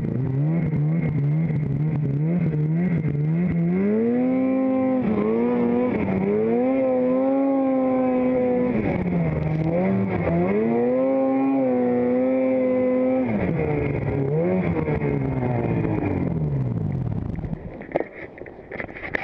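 Snowmobile engine revving up and down in several long swells as the throttle is worked. The engine drops away about three seconds before the end, and a few sharp knocks follow.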